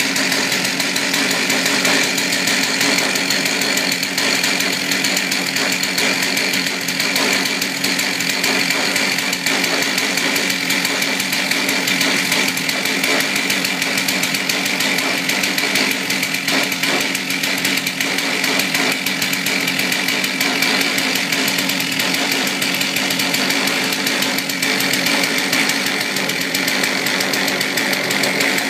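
Stihl two-stroke chainsaw running steadily at a constant speed, with no revving.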